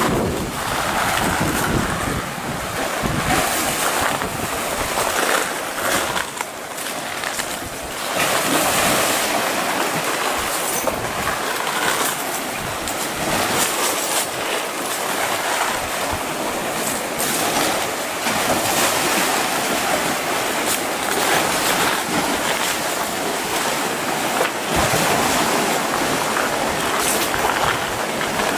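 Sea waves washing in and surging among rocks and boulders along the shore, in a continuous noise that swells and falls.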